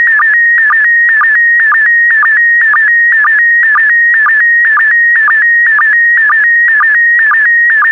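Slow-scan TV (SSTV) image signal in PD120 mode: a loud, high electronic whistle near 2 kHz, broken at an even pace about twice a second by short dips in pitch. Each dip is the sync pulse that starts a new pair of scan lines as the picture is sent.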